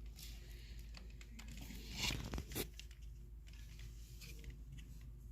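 Faint handling and rubbing sounds as grease is worked around the battery terminal posts, with two short scraping rustles about two seconds in.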